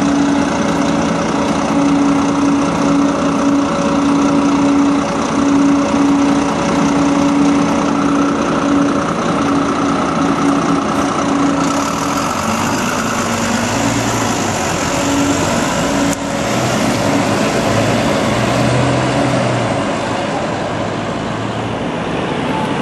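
Volvo B9TL double-decker bus running with its vacuum-cleaner-like 'hoover' whine, a steady tone for the first half. About twelve seconds in, the whine fades and the note drops lower, with a single click a few seconds later.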